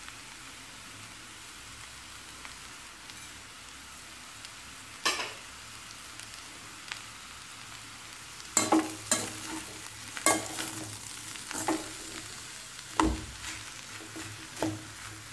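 Metal potato masher clanking and scraping against a stainless steel pan while mashing and mixing spiced potato filling: one knock about five seconds in, then a run of irregular clanks and scrapes from about halfway, over a steady low hiss.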